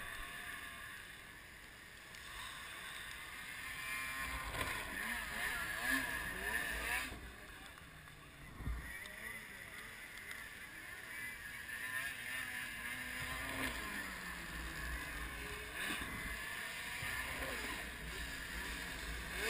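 Snowmobile engine running from a distance and revving harder as the sled speeds up the run-in and launches off the jump ramp, its pitch rising and falling. A sudden loud burst comes right at the end.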